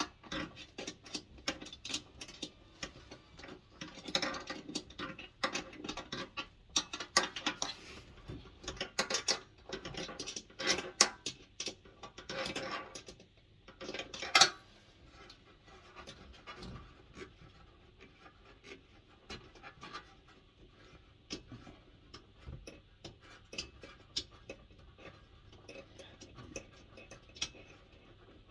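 Hand tools working the bolts of a diesel heater: irregular metallic clicks, scrapes and taps as the bolts are undone, busiest in the first half, with one loud knock about halfway through, then fainter scattered ticks.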